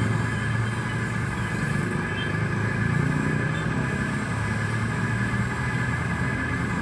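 Steady motor hum with a high whine running through it.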